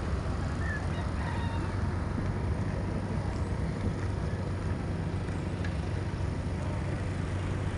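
Steady low hum and rumble of a vehicle driving slowly along a road, with a few faint short chirps above it.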